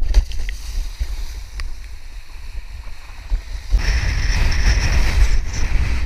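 Wind buffeting an action-camera microphone on a kiteboard run. A little past halfway, a louder, steady rushing hiss sets in suddenly as the board planes fast across the water and throws spray.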